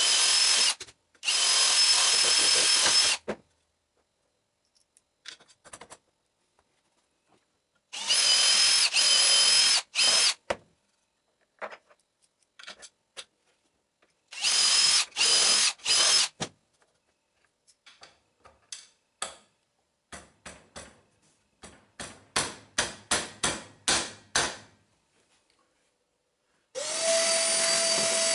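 Cordless drill boring 1/4-inch holes through a steel plate into wooden spokes, in three runs of two or three seconds each with brief stops. A string of light clicks and taps follows. Near the end a shop vacuum starts up and runs steadily with a held tone.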